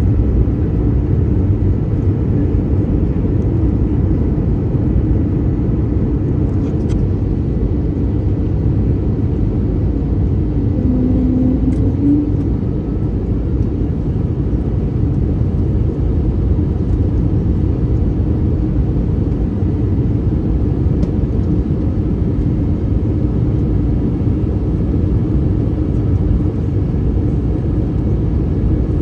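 Airbus A321neo cabin noise in flight: a steady low roar of engine and airflow, heard from inside the passenger cabin.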